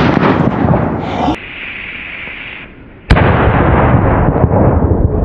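Small Megatresk firecracker going off on asphalt: a single sharp bang about three seconds in, followed by loud rumbling noise, with rumbling and hiss from a previous bang before it.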